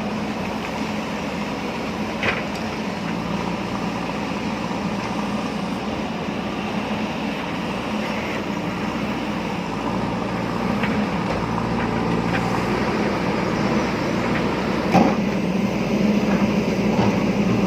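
A JCB backhoe loader's diesel engine running steadily under load, growing a little louder about two-thirds of the way through. A few sharp knocks sound over it, the loudest near the end.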